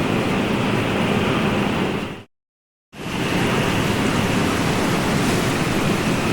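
Steady rushing of ocean surf. It cuts out completely for under a second about two seconds in, then fades back in.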